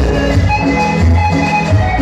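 Latin dance music played loud over a sonidero's sound system, with deep repeating bass notes and a steady beat.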